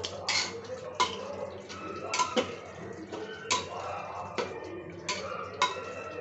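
Long metal ladle stirring in an open aluminium pressure cooker, knocking and scraping against the pot's inside in irregular clinks about once a second.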